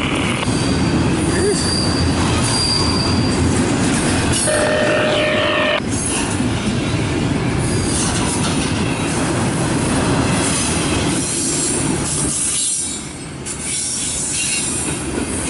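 Double-stack intermodal freight cars rolling past close by: a steady rumble and clatter of steel wheels on the rails. A few short, high wheel squeals come in the first six seconds.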